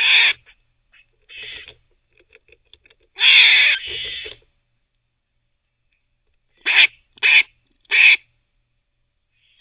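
Gray squirrel barking in harsh calls: one at the start, a fainter one about a second and a half in, a longer double bark about three seconds in, then three short barks about half a second apart near the end. Faint gnawing clicks come between the barks as it chews on a teething piece.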